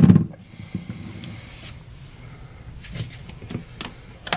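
Handling noises of a small coffee maker and its mug: a heavy thump at the start, then scattered light clicks and knocks of plastic and ceramic, with a sharper knock near the end.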